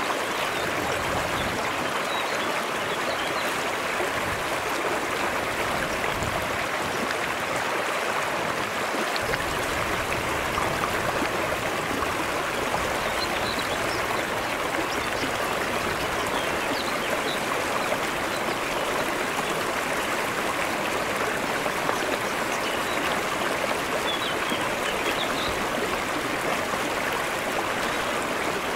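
Shallow mountain stream flowing over flat rock ledges: a steady, even rush of water.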